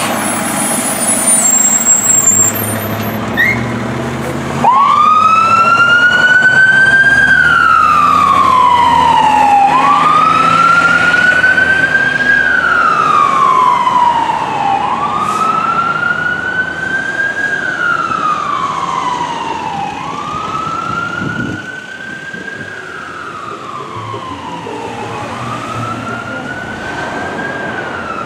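Fire engine's siren sounding a slow wail, the pitch rising and falling about every five seconds, starting about five seconds in after a few seconds of the truck's engine rumble. It grows fainter in the second half as the truck drives away.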